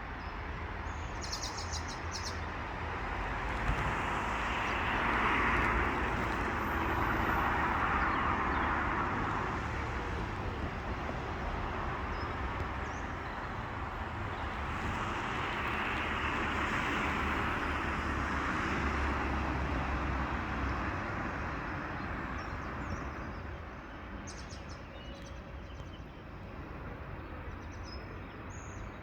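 Outdoor dawn ambience: a rushing noise that swells and fades twice, with a few short bird chirps near the start and again near the end.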